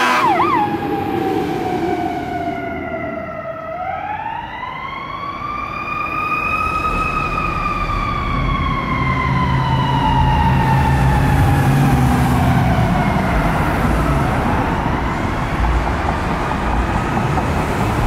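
Fire rescue truck's Federal Q-type siren winding: the pitch dips, climbs into a rising wail, then slowly coasts down over several seconds and starts to climb again near the end. A fast electronic siren warble cuts off about half a second in, and the truck's engine rumbles underneath.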